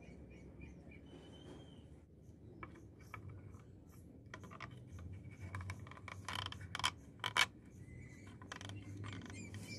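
A strip of PVC sheet being handled and pressed into a PVC frame: light scraping and tapping of plastic on plastic, with two sharp clicks a little past the middle.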